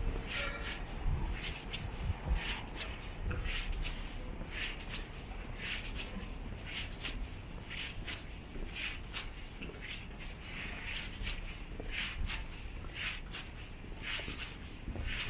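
Footsteps of a person walking on an asphalt street at a steady pace, each step a short scuff, over a low steady rumble.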